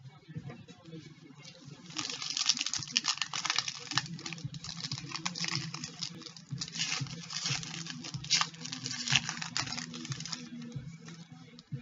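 Trading-card pack wrapper crinkling and tearing as it is opened and handled. A dense crackle starts about two seconds in and dies down near the end, over a low steady hum.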